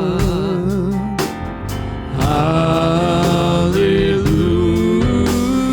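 Gospel worship music from a live band: held chords and a note wavering with vibrato over bass and drum hits. The music dips briefly about a second in, then swells back.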